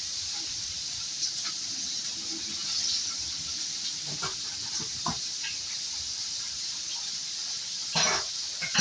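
Fish frying in hot oil in a pan, a steady sizzle, with a few light knocks and a louder knock near the end.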